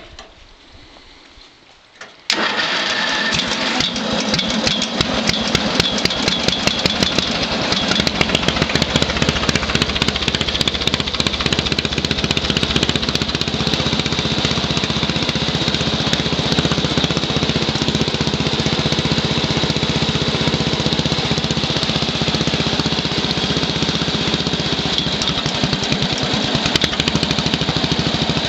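Montgomery Ward garden tractor engine starting about two seconds in, then running loud with a rapid, steady exhaust beat through short open upright exhaust stacks.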